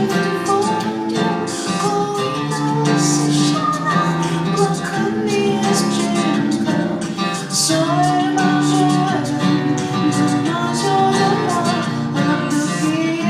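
Recorded music played for a dance number: a song with guitar and a singing voice, running steadily.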